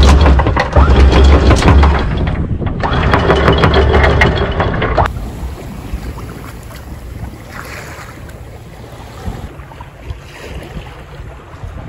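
Anchor chain being hauled in over the bow, the links clattering down into the chain locker over a steady low hum, pausing briefly about two seconds in and then going on. About five seconds in it gives way to quieter wind and water wash from the sailboat under way, with wind on the microphone.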